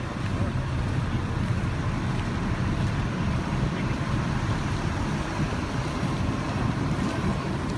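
Steady low rumbling outdoor background noise, with no distinct events.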